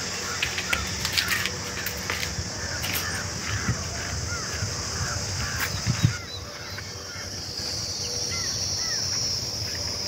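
A bird repeats a short arched call about twice a second over a steady high hiss, with a few sharp clicks in the first couple of seconds.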